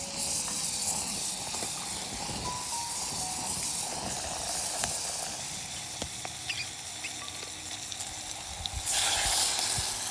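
Garlic and herbs sizzling in a hot metal camp pot over a wood-burning stove, loudest just after they go in, settling to a steady hiss, with a louder burst of sizzling near the end.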